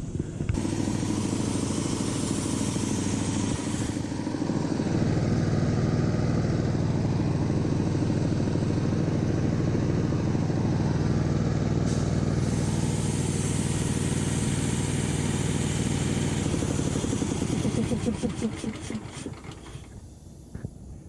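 An engine running at a steady speed. It picks up slightly a few seconds in, then winds down and stops near the end.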